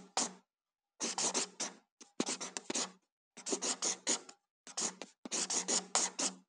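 Felt-tip marker scribbling on paper in quick, short strokes, coming in clusters with brief silences between them.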